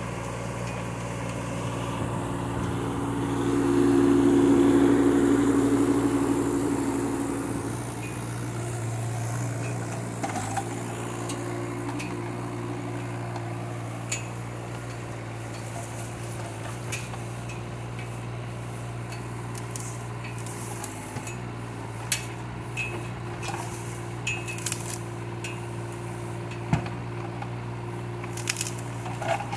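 Kubota K008 mini excavator's diesel engine running steadily, swelling louder with a held tone for a few seconds near the start as the hydraulics work under load. From about ten seconds in, scattered sharp snaps and cracks as the bucket breaks and rips out a bush, roots and all.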